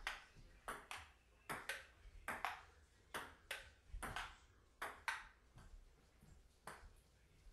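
Ping pong rally: the plastic ball clicking sharply off paddles and the table in quick pairs, about one pair every 0.8 seconds. The hits stop about five seconds in, followed by a few fainter clicks near the end.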